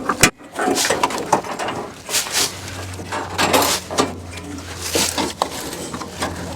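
Irregular metallic clatter and knocks of a steel sawmill band blade being handled and fitted onto the band mill, with a low steady hum starting about two and a half seconds in.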